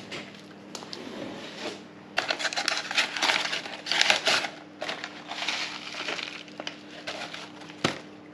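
Paper being crumpled and crinkled in the hands, in crackly bursts that are loudest a couple of seconds in, with a single sharp knock near the end. A faint steady hum runs underneath.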